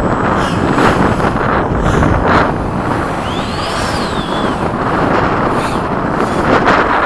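Strong wind buffeting the microphone in gusts. About halfway through, a faint high whine from an electric ducted-fan jet rises and then falls in pitch.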